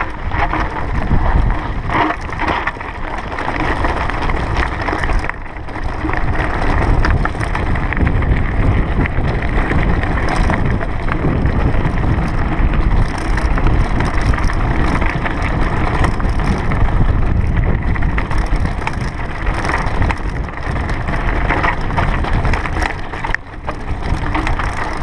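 Mountain bike rolling downhill over rocky, loose-gravel trail: tyres crunching over stones and the bike clattering on the bumps, with wind rumbling on the microphone.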